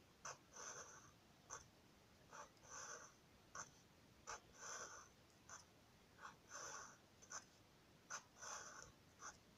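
Black felt-tip marker drawing short lines on paper. Faint scratchy strokes about a third of a second long come every second or so, with short sharp taps between them.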